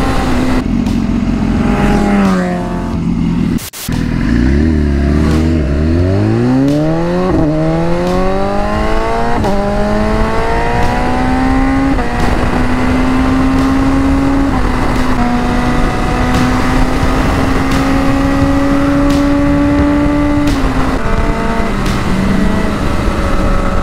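Motorcycle engine under way: the pitch sinks, the sound drops out for a moment about four seconds in, then the engine accelerates through several upshifts, each a rising climb that falls back at the shift, and settles into a steady cruise. A constant rush of wind and road noise runs underneath.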